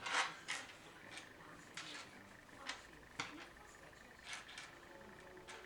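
Irregular short clicks and rustles from handling computer case parts, about nine in all, the loudest just at the start.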